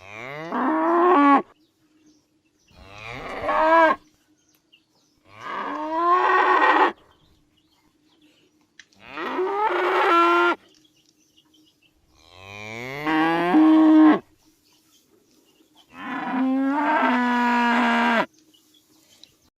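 A cow mooing six times, each moo sliding up in pitch and then holding, with short pauses between calls.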